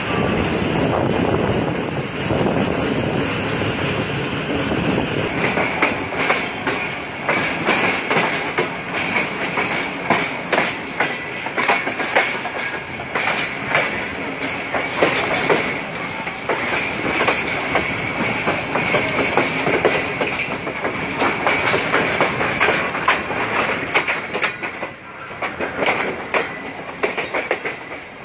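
Wheels of a Pakistan Railways passenger coach clattering irregularly over rail joints and points, heard close up from the open doorway of the moving train. A steady high wheel squeal joins in from about five seconds in as the coach runs through the station pointwork.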